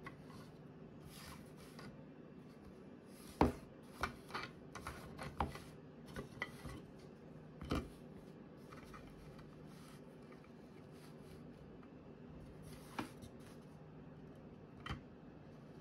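3D-printed plastic grille pieces being handled: scattered light clacks and knocks as the hard parts are set down, slid and butted together on a mat, the sharpest about three and a half seconds in.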